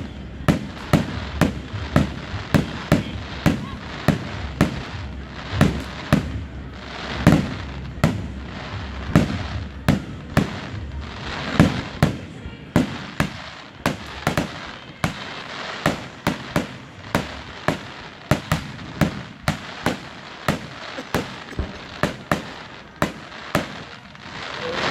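Aerial firework shells bursting in a continuous barrage, sharp bangs following each other about two a second without a break.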